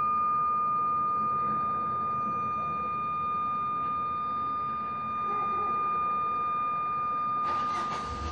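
A steady high-pitched tone held at one pitch throughout, like an electronic whine or a distant alarm tone, with a brief rush of noise near the end. No gunshots are heard.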